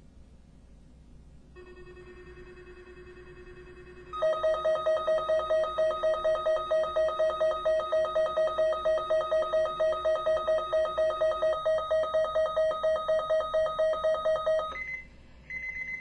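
Weather radio receiver sounding its alert alarm: a faint steady tone, then about four seconds in a loud, rapidly pulsing electronic beep, about five beeps a second, that stops shortly before the end. Two short high beeps follow.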